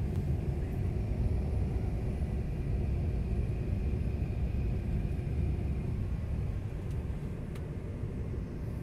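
Steady low rumble of a jet airliner in flight, heard inside the passenger cabin: engine and airflow noise, with a couple of faint clicks near the end.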